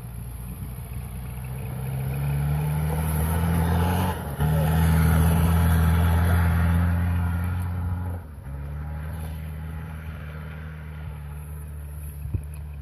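SUV engine pulling across snow, its revs and loudness rising over the first few seconds, with a brief break about four seconds in. It runs loudest until about eight seconds in, then eases off to a quieter, steady run.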